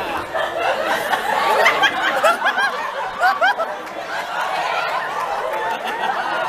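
An audience laughing, many voices overlapping, with the laughter peaking in the middle.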